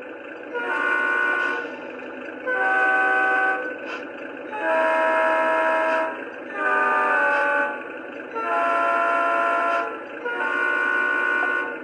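Electronic horn from the onboard sound system of a Lionel Maryland & Pennsylvania Doodlebug model train: six blasts of about a second each, the horn's pitch changing from one blast to the next. The model's steady gas-engine idle sound runs underneath.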